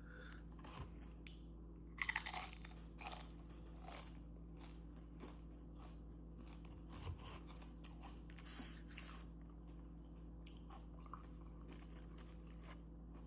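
Chewing homemade fried white-corn tortilla chips, which are a little soft. A few loud crunches come about two to four seconds in, then quieter, sparser chewing.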